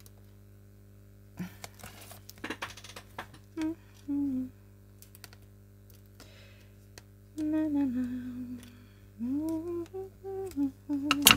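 A woman humming a tune to herself in a few short phrases, with light clicks and taps from handling craft materials in between and a sharper click near the end.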